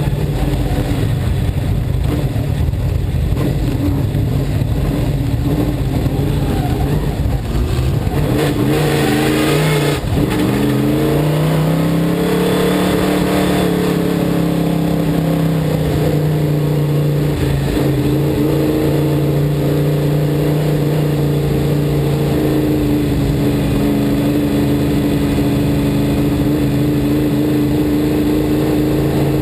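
A dirt-track sportsman race car's V8 engine runs at low, steady revs, heard from on board. About ten seconds in the revs dip briefly, then rise and settle back to a steady lower speed.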